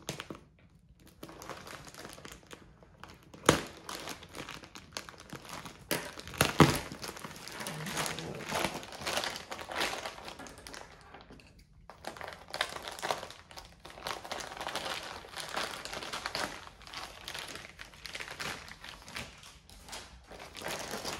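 Clear plastic packaging bag crinkling and rustling as it is handled and opened, with two sharp, louder cracks about three and a half and six and a half seconds in.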